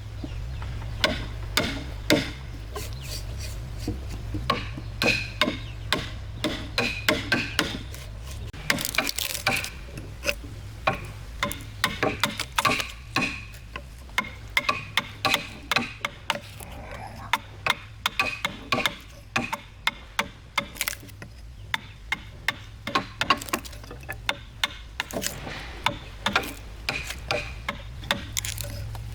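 Irregular sharp knocks and taps of tools on timber, a few a second, over a steady low hum.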